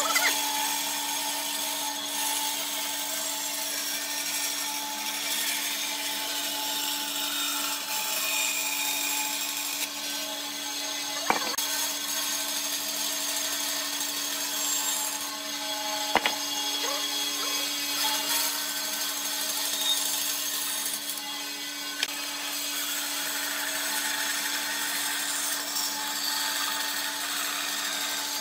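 Bandsaw running with a steady motor hum while its blade cuts through a thick wooden block, a continuous hiss of sawing. Two sharp clicks, about eleven and sixteen seconds in.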